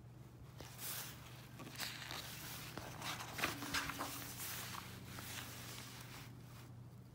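Page of a paperback picture book being turned by hand: paper rustling and sliding for several seconds, with a few crisp crackles around the middle.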